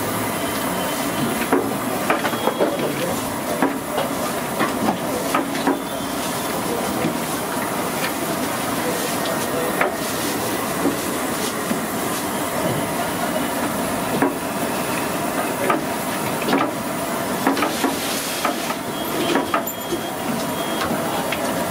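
Cut raw potato sticks being tossed and mixed by hand in a steel bowl, with many small clicks and rustles, over a steady hiss.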